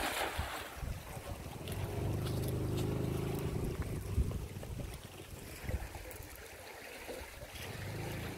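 A thrown cast net lands on the water with a brief splashing rush. About two seconds later a low, steady hum rises over the wind and water noise for a couple of seconds, then fades.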